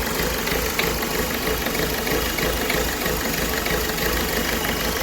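Ford Figo's four-cylinder engine idling steadily. The engine has a misfire, which the mechanic traces to a shorted number-3 fuel injector (code P0203).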